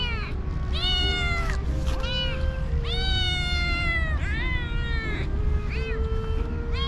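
Stray kittens meowing over and over for food. The high, drawn-out meows rise and then fall in pitch, about six of them one after another, the longest lasting about a second.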